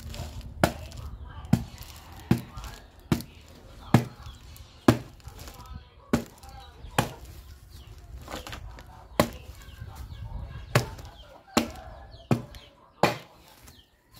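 Large knife chopping into a jackfruit to take off its skin: a steady run of sharp knocks, a little more than one a second.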